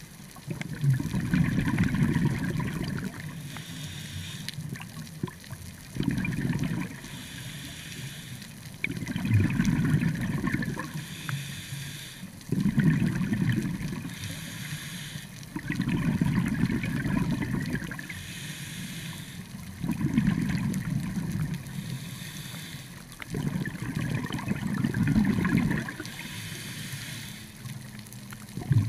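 Scuba diver breathing through a regulator underwater: a short hiss on each inhale, then a long bubbling spell as each breath is exhaled. About seven breaths, one every three to four seconds.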